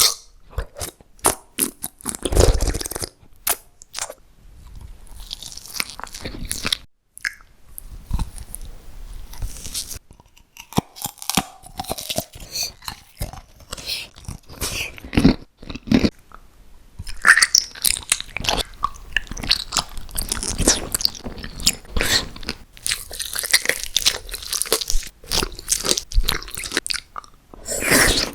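Close-miked eating: crisp bites and crunching with irregular wet chewing clicks, broken by a few short pauses.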